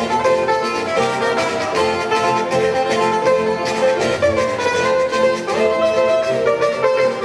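Instrumental passage of a Colombian carranga-style string band. Strummed and plucked small steel-string instruments, such as tiple and requinto with guitar, play under a held melody line, with no singing.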